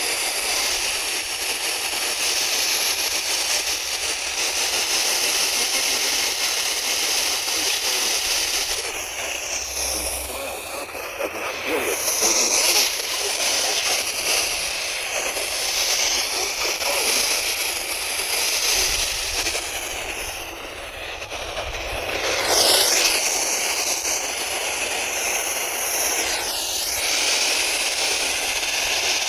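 Steady hiss of FM radio static from a weakly received station, fading and swelling a few times.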